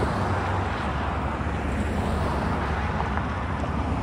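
Road traffic: cars and pickup trucks driving past close by, with tyre noise over a steady low engine hum.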